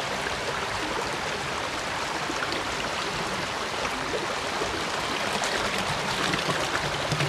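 Stream water running steadily, with light splashing coming in from about five seconds in as seeds are rinsed in the water.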